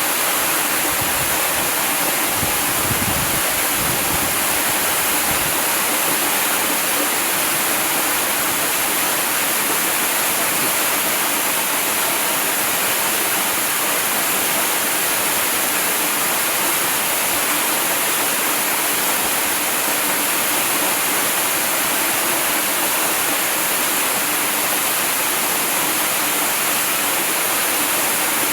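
Waterfall: water falling and splashing in a steady rush.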